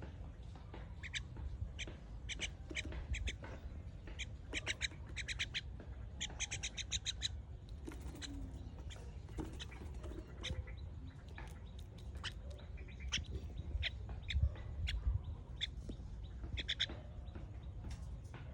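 Small birds chirping over and over in quick runs of short, high notes, some runs of several notes in fast succession, over a low steady rumble.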